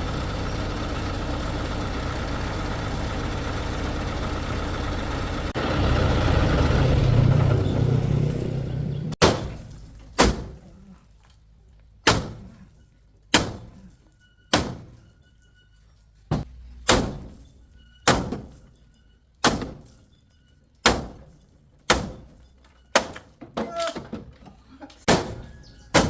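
An engine running steadily, rising for a few seconds, then cutting off. It is followed by a regular series of sharp knocks about every second and a half, each ringing briefly as it dies away.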